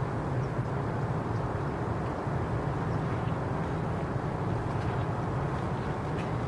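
Steady low rumble of outdoor background noise, with a few faint ticks above it.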